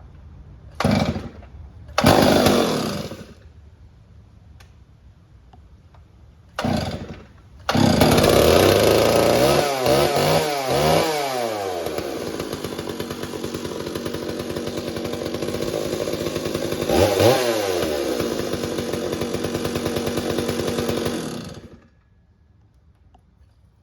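Stihl 038 two-stroke chainsaw, freshly rebuilt with a new carburetor and spark plug, being pull-started. It fires in short bursts on the first pulls, catches about eight seconds in and runs. It is revved several times, settles to a steady run, is revved again, then cuts off suddenly near the end.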